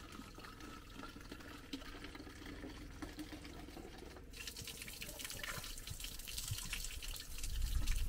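Water running and dripping, changing to a fuller, hissing flow about four seconds in.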